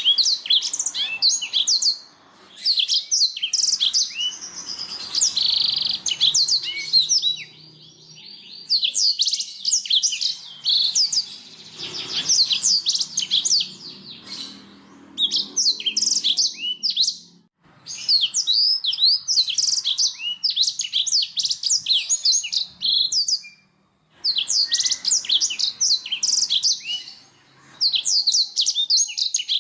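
Domestic canary singing: long phrases of fast, high trills and chirps, broken by brief pauses.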